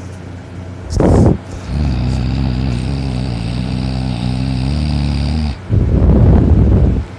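Loud snoring from a deeply sleeping person. A short, noisy breath comes about a second in, then a long, low, steady snore lasts about four seconds and stops suddenly, and a noisy breath out follows near the end.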